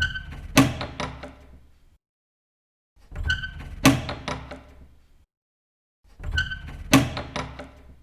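A door's handle and latch clicking, then one sharp, louder knock as the door moves, fading out in a short rattle. The same door sound plays three times, about three seconds apart.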